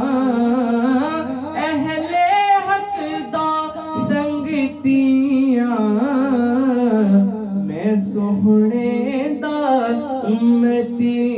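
A boy's solo voice singing a Punjabi naat into a microphone, a long ornamented melodic passage with the pitch bending and turning continuously and no clear words.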